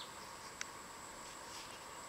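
Faint outdoor background: a steady high hiss with a few faint high chirps, and a single sharp click about half a second in.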